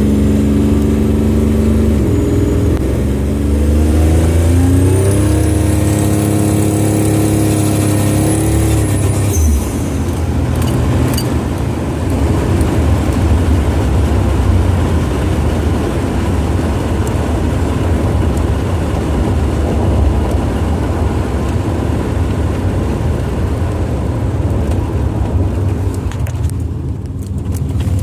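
Buick Grand National's turbocharged V6 pulling under boost: the engine note climbs for a few seconds, with a faint high whine rising above it, then gives way to a steady, heavy rushing rumble. This is the sound of a possible exhaust leak under boost.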